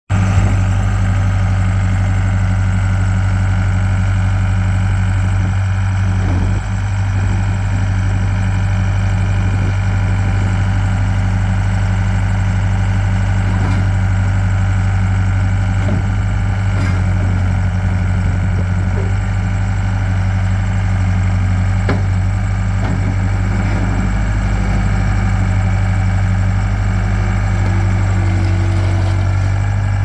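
A Case 1840 skid steer loader's four-cylinder Cummins diesel engine running steadily with a deep, even hum while the loader works its bucket and manoeuvres on over-tire steel tracks. The level dips briefly about six and a half seconds in, and a few faint knocks come through.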